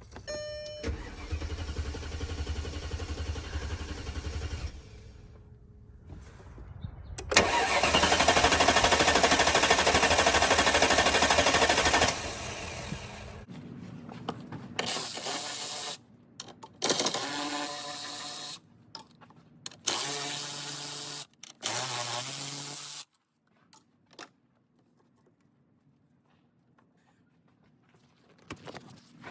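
Mercedes-Benz R-Class engine cranking on the starter in several attempts without catching. This crank-no-start points to a failed crankshaft position sensor.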